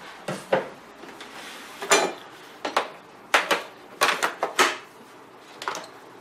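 Irregular sharp clicks and knocks of things being handled at a kitchen counter, including a single-serve pod coffee maker being opened and worked by hand, about a dozen in quick succession.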